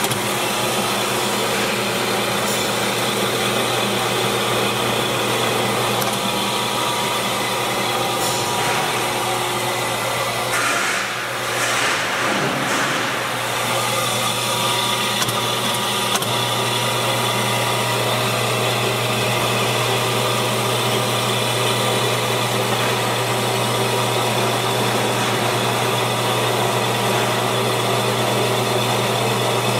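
Aronson 2,000 lb welding positioner's electric drive running steadily, a constant mechanical hum that gets louder about halfway through.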